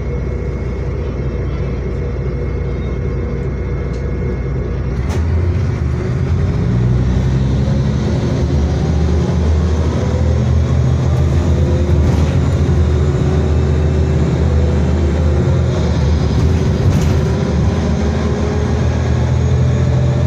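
VDL DB250 double-decker bus's diesel engine and automatic gearbox heard from inside the passenger saloon. About five seconds in there is a click, and the engine note jumps louder and heavier as the gearbox kicks down. It then climbs steadily in pitch as the bus accelerates under hard throttle.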